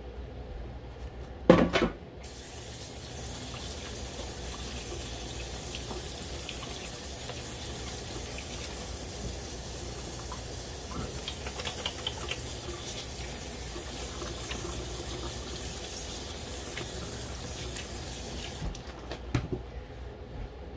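A single loud knock, then a kitchen tap runs into the sink in a steady stream for about sixteen seconds and is shut off near the end.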